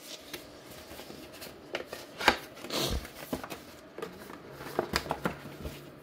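Cardboard and paper packaging handled: a stiff cardboard folder and paper leaflet rustling, sliding and tapping, with a sharp click a little past two seconds in and a swish soon after.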